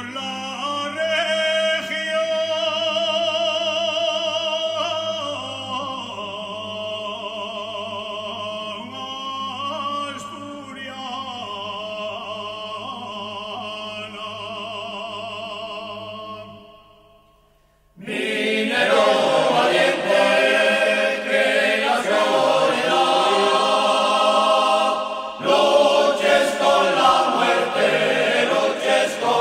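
Sung music on the soundtrack: voices holding long notes with vibrato over a low drone fade out about seventeen seconds in, and after a pause of about a second a louder, fuller choir starts.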